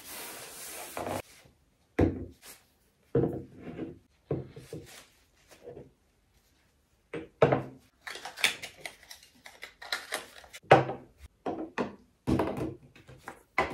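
Skincare bottles and jars being picked up and set down on a wooden tray and vanity top: separate knocks and clacks, a few at first with gaps between, then many in quick succession in the second half.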